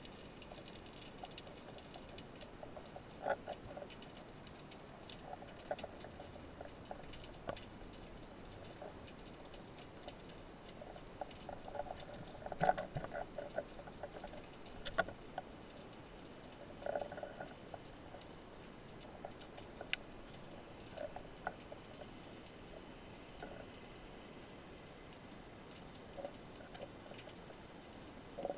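Faint underwater ambience: scattered soft clicks and short crackling clusters over a low hiss, the loudest cluster near the middle.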